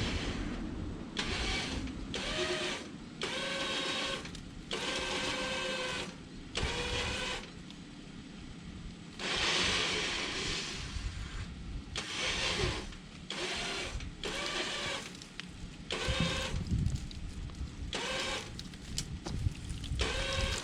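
Electric winch motor whining in about a dozen short bursts, starting and stopping over and over, with a steady low rumble underneath.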